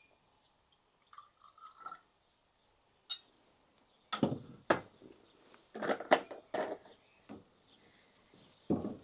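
A glass reagent bottle and a small glass beaker handled on a lab bench. A faint trickle of liquid pouring into the beaker comes about a second in, then a run of short glass clinks and knocks as the bottle is set down and handled.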